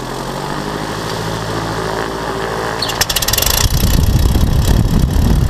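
An engine running steadily at low speed, then growing much louder and rougher about three seconds in, as if the throttle is opened.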